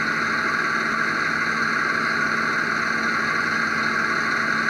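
Steady cabin noise of a stationary 2008 Dodge Challenger SRT8 with the engine idling: an even hiss with a faint steady hum underneath.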